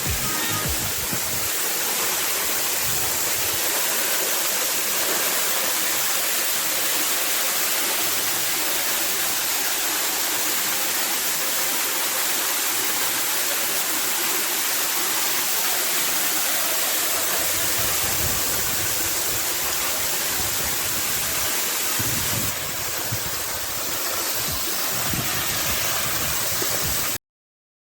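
Waterfall's falling water rushing as a steady, loud hiss. The sound shifts slightly about 22 seconds in, then cuts off suddenly near the end.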